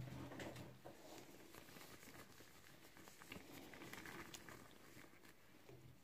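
Near silence, with a faint patter and rustle of tiny glass beads trickling into a latex cleaning glove as it is handled.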